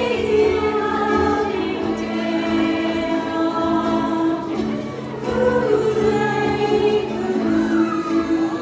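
Ukulele ensemble performing live, a group of voices singing held notes together over the ukuleles.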